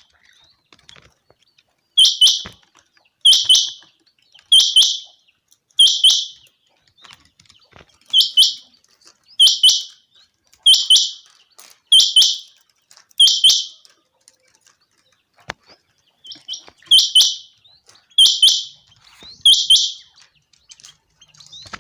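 Quail (chinga batair) calling: a loud, sharp double note repeated about every 1.3 seconds, with a pause of a few seconds past the middle before it resumes.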